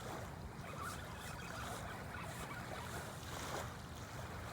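Steady low rumble of wind and water, with faint scattered sounds above it.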